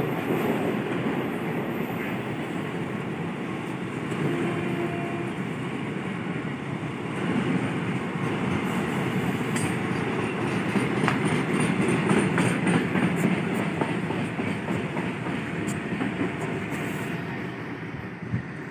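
Long freight train of loaded flatcars rolling past, its wheels clattering steadily on the rails, starting to fade near the end as the last wagon goes by.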